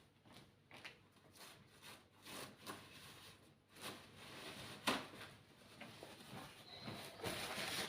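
Faint kitchen handling noises: scattered small clicks and rustles as mushrooms and utensils are handled, with one sharper knock about five seconds in and a steadier rubbing sound near the end.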